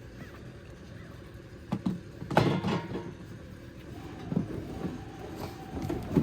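Large plastic prop pieces and cardboard knocking and clattering as they are handled, the loudest knock about two and a half seconds in. From about four seconds in, a faint steady engine hum joins in: a lawn mower starting up outside.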